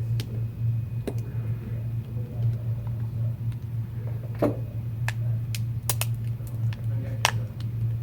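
Scattered small clicks and taps of phone parts and tools being handled during a smartphone reassembly, about half a dozen in all, the sharpest about four and a half and seven seconds in. They sit over a steady low hum.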